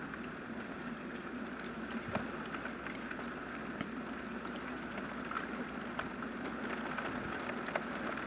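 Steady rain falling, with scattered drops ticking sharply now and then.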